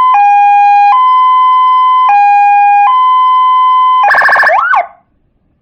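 Electronic two-tone hi-lo siren from a CJB200 nine-tone siren module through a 300-watt round horn speaker, stepping between a higher and a lower tone about once a second. About four seconds in it switches to a rapid buzzing pulse with a short rising whoop, then cuts off abruptly.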